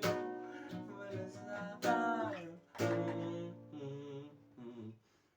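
Acoustic guitar strumming chords, each strum left to ring out and fade; the playing thins out and stops briefly near the end.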